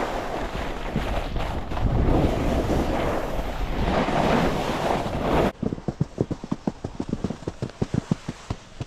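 Wind rushing over the microphone and a snowboard sliding and scraping over the snow on a downhill run. About five and a half seconds in it cuts off sharply to a quieter, rapid low flutter of about eight soft thumps a second.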